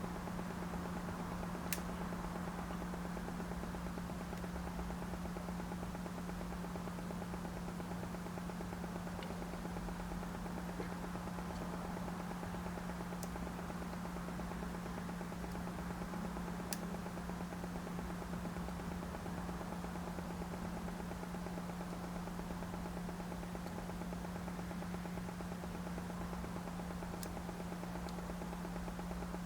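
Steady low hum with a few faint, isolated clicks.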